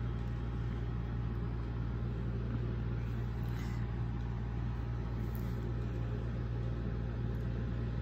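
A steady low hum with a faint hiss over it: a motor-driven appliance running without change.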